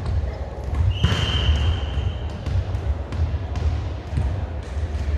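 A referee's whistle blown once about a second in, a steady shrill tone lasting about a second and a half. It sounds among scattered sharp thuds of a volleyball being hit and bouncing, over a steady low rumble.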